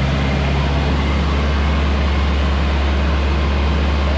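Four-wheel-drive truck engine running steadily at idle: a constant low hum.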